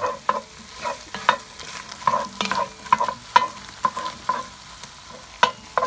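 A wooden spatula knocking and scraping against a cast-iron Dutch oven as sautéing potatoes, onions and peppers are stirred, in irregular strokes about two a second. A faint sizzle of frying runs underneath.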